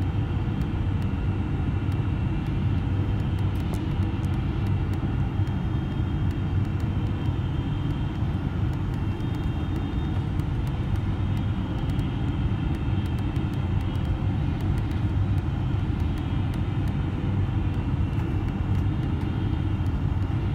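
Steady cabin rumble of a Boeing 777-300ER on approach, its GE90 engines and the airflow heard from a window seat over the wing. A faint engine tone wavers slightly in pitch over the low roar.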